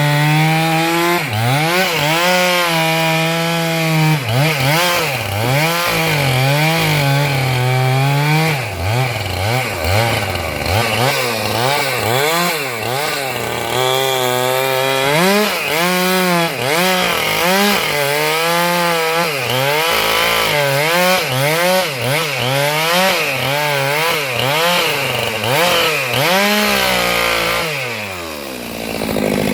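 Stihl MS 462 two-stroke chainsaw cutting wood, its engine pitch rising and dipping over and over as the chain loads up in the cut and frees again. Near the end the revs fall away sharply.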